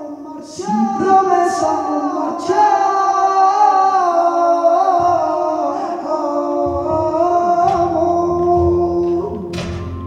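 Male flamenco singer (cantaor) singing a long, ornamented, wavering line of cante. About two-thirds of the way through, low steady notes join underneath.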